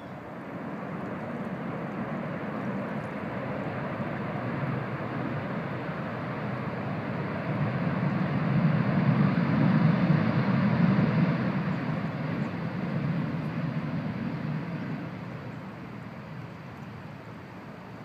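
Jet engine roar of a landing Airbus A380 on its rollout after touchdown, a rumbling noise that swells to its loudest about halfway through and then fades away.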